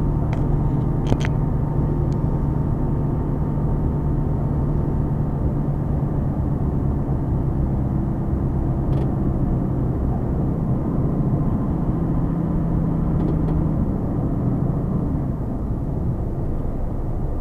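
Mercedes Actros truck's 12.8-litre diesel engine droning steadily at cruising speed, heard from inside the cab with road and tyre rumble underneath. A few short clicks come about a second in.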